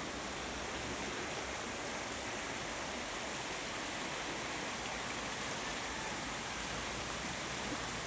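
River water rushing steadily, an even hiss that does not change.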